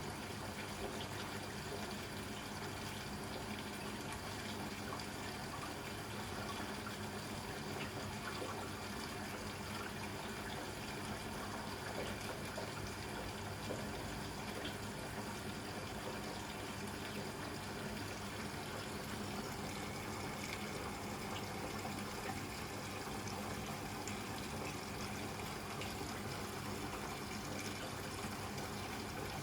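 Hoover Electra 535 Dual Spin washing machine filling with water for its first rinse: a steady rush of water pouring in, with a steady low hum under it.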